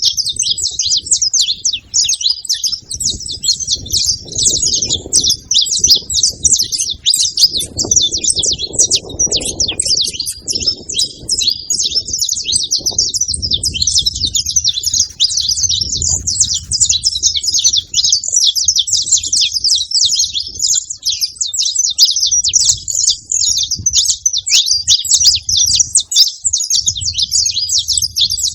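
Saffron finches, male and female, chirping and singing without pause in a dense, fast, high-pitched chatter, with a faint low rumble underneath at times.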